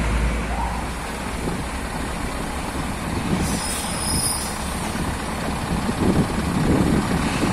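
Scania heavy-haul truck's diesel engine running as it pulls a multi-axle lowbed trailer carrying a locomotive at walking pace, with road traffic around it. The sound shifts at a cut about three and a half seconds in, and the engine grows louder near the end.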